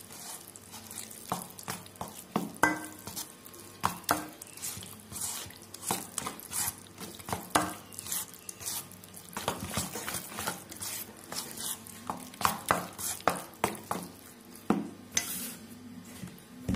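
Cake batter being stirred by hand in a steel mixing bowl: wet, sloshing mixing with irregular clinks and scrapes against the bowl's side.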